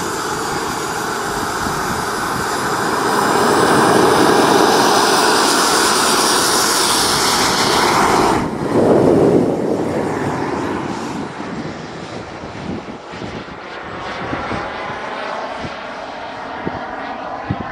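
Model turbine jet engine of a Skymaster BAE T-45 Goshawk RC jet running in flight, heard from on board as a high whine over rushing air. It grows louder a few seconds in, drops abruptly about eight seconds in, and carries on lower and quieter.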